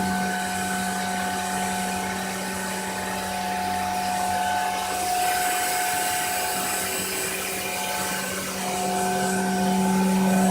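Glass-engraving CNC machine's spindle running steadily with a high, even whine made of several constant tones, slightly louder near the end.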